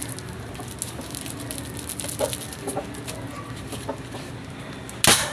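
Chickens clucking, then about five seconds in a single loud bang from a boga, a homemade Filipino pipe cannon, firing once.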